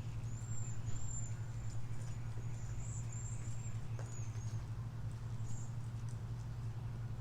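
Small birds chirping: short, very high-pitched arched notes in a few quick clusters, over a steady low hum.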